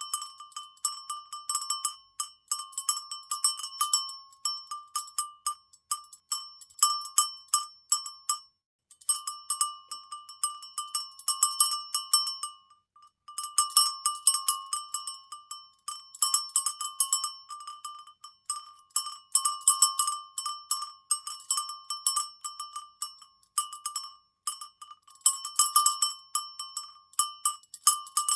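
A high-pitched cowbell shaken so its clapper clanks rapidly and irregularly, each strike ringing briefly; the shaking stops for a moment twice.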